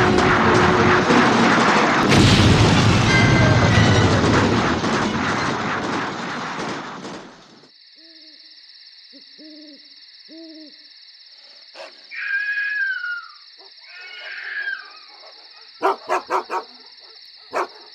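A loud, dense film-soundtrack din fades out over the first seven seconds. It gives way to a quiet night bed with a steady high-pitched hum, in which an owl hoots a few times. A dog then gives two falling whines, and a quick run of short sharp knocks comes near the end.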